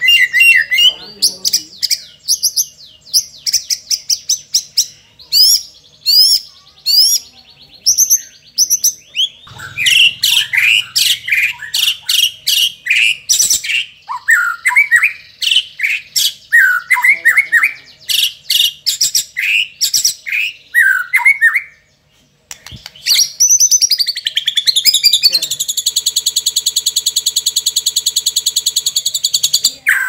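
White-rumped shama singing loudly: a varied song of fast repeated notes, whistled glides and chattering phrases, laced with mimicry of other birds and of crickets. There is a brief pause about two-thirds of the way through. Near the end comes a long, very even, rapid trill.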